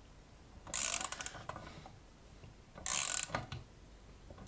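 Ratchet wrench clicking in two short runs, about a second in and again near three seconds, as it winds the draw bolt of an 18.6 mm screw-type chassis punch cutting through 1.5 mm steel sheet.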